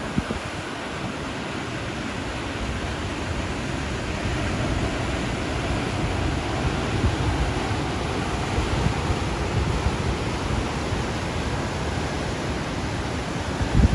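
Heavy ocean surf breaking over a rocky shore: a steady rush of white water that swells a little through the middle.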